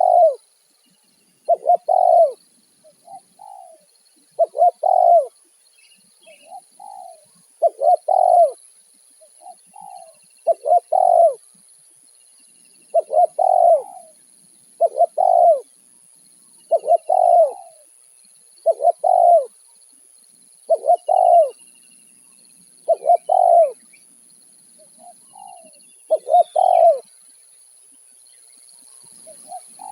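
Spotted dove (tekukur) cooing over and over: loud, closely paired coos every second or two, with softer coo notes between them. Faint chirps of small birds sound above it.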